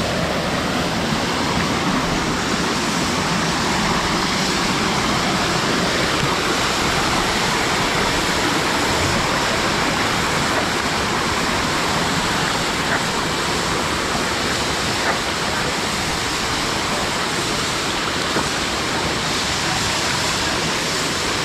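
Waterfall pouring and splashing in a steady rush.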